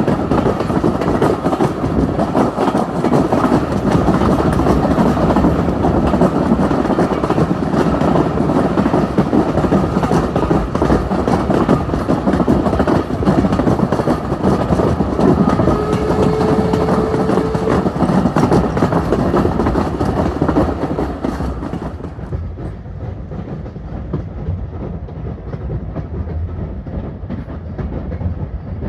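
Steam railway carriage running along the track: a steady rumble of wheels on rail with a constant rattle of small knocks. About three-quarters of the way through, the noise turns quieter and duller.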